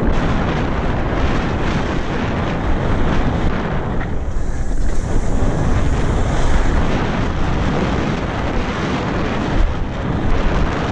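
Wind rushing over a helmet camera's microphone on a fast mountain-bike descent, with the tyres rumbling over the dirt trail and the hardtail bike rattling over the bumps throughout.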